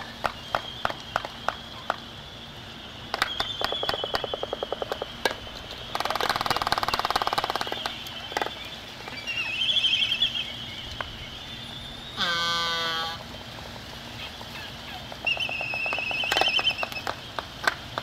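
Waved albatross pair in courtship display: sharp single bill clacks, then several bursts of rapid bill-clattering, with one short pitched call about halfway through.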